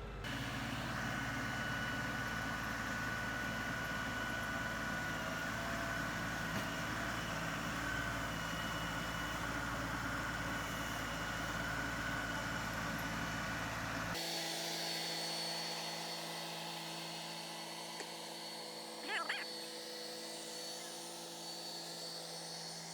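LS XR3135 compact tractor's three-cylinder diesel engine running steadily at PTO speed, a fairly quiet, even hum. About fourteen seconds in the sound abruptly thins, losing its low rumble while steady tones carry on, and a brief wavering cry comes near nineteen seconds.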